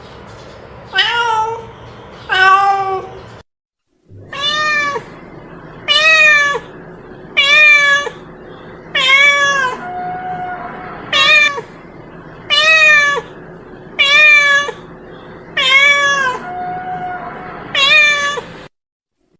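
A domestic cat meowing over and over, about eleven loud meows each a second and a half to two seconds apart. Each call rises and then falls in pitch. The run breaks off twice into brief dead silence.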